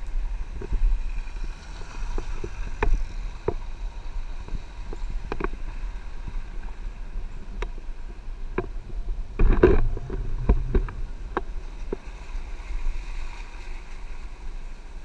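Off-road 4x4 driving over a rough dirt track, heard from a camera on its roof: a steady low rumble with frequent sharp knocks and rattles as the body and roof rack jolt over bumps, loudest about ten seconds in.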